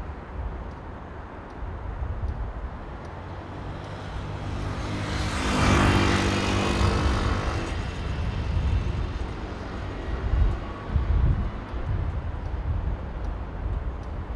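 Diesel engines of a KiHa 40-series railcar train running as it moves slowly through a station yard, a steady low rumble. About five to seven seconds in, a louder passing sound with a droning tone swells and fades, and a few low thumps follow near ten seconds.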